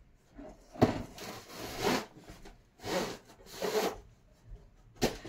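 Cardboard packaging scraping and rustling in a string of short bursts as a folded tripod stand is pulled out of its box, with a sharp knock about a second in and another near the end.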